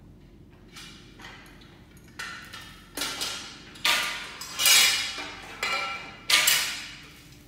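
Irregular series of sharp metallic knocks and clinks, each ringing briefly: a hand tool and fittings striking the aluminum profile frame of a reagent shelf being assembled. The first two knocks are faint; the knocks grow louder after about two seconds, the loudest near the middle and about six seconds in.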